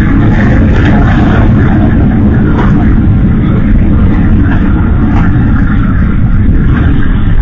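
Fire on a burning electric vehicle, heard as a loud, steady rushing roar with a few sharp crackles.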